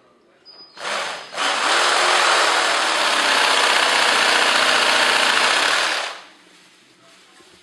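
Cordless drill boring a pilot hole into a concrete floor: a short burst about a second in, then steady, loud drilling that stops about six seconds in.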